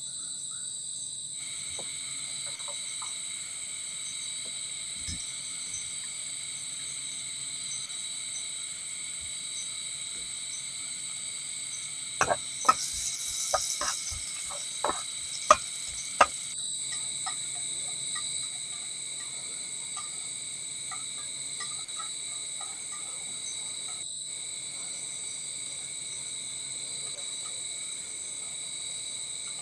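Tropical forest night insects, crickets among them, keeping up a steady high-pitched chorus of several held tones. About halfway through comes a short run of sharp clicks and knocks.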